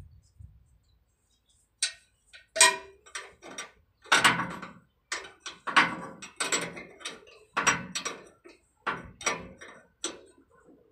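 Irregular metallic clicks and clinks, about a dozen short knocks, as an air-line fitting is worked onto the supply port of a truck trailer's brake relay valve with a wrench and gloved hands.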